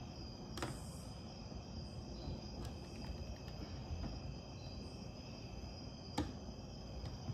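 Torque wrench slowly turning the pressing screw of a Kuntech KT-3209 timing-chain rivet tool on a double-row timing chain, tightening toward the torque setting: a few isolated sharp clicks, about three, over low shop noise and a faint steady high-pitched whine.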